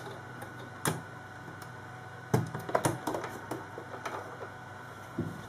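Small sharp clicks and taps of a metal zipper foot being fitted onto a sewing machine's presser-foot holder: one click about a second in, a quick cluster in the middle, and a couple more near the end.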